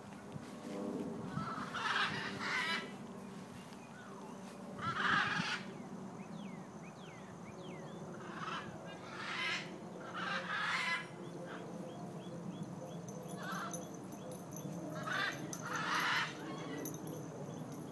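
Emu chicks calling in short chirping bursts, about nine of them at irregular intervals. Faint thin whistles come between the bursts.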